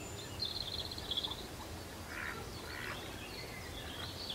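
Birds calling outdoors: a rapid high trill in the first second or so, then two short harsh calls, over steady low background noise.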